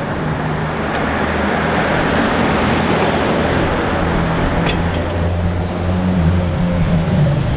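Road traffic: cars passing close by, the tyre and engine noise building over the first couple of seconds and then holding steady. A brief high squeak about five seconds in.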